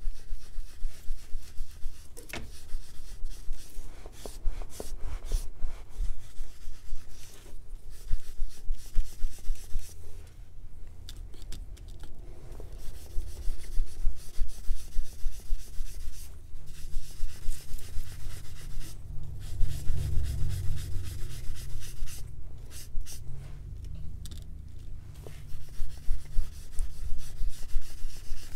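Foam brush rubbing Resolene acrylic finish in small circles over a dyed leather belt: a rhythmic rubbing of about four strokes a second, in bouts with short pauses. The strokes work the finish coat evenly into the dye to get rid of streaking.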